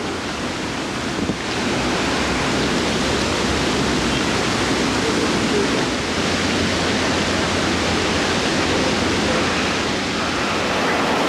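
Steady rushing noise with no distinct events, stepping up in level about a second and a half in.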